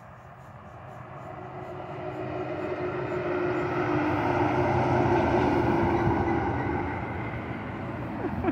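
Tanker semi-truck driving past on a highway: its engine hum and tyre noise swell as it approaches, are loudest about halfway through, then fade as it goes by.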